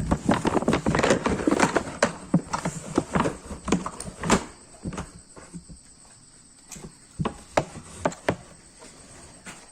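Irregular knocking and clattering: a thick run of knocks for the first four seconds or so, then scattered single knocks.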